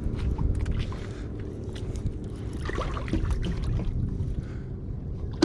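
Wind rumbling on the microphone over lapping lake water, with scattered small clicks and knocks of tackle being handled.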